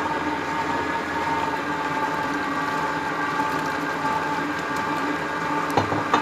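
Electric stand mixer's motor running steadily with a whirring hum, its dough hook working flour and water into a dough. Two short knocks near the end.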